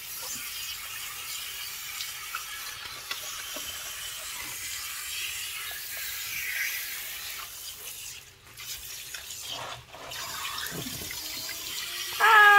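Salon shampoo basin's handheld sprayer running water over hair and into the basin, a steady hiss that breaks off briefly twice in the second half.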